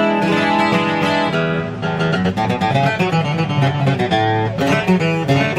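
Takamine JJ 12-string acoustic guitar being played, chords strummed with runs of picked notes in between. It has a fresh setup with very low action and rings clean, with no fret buzz.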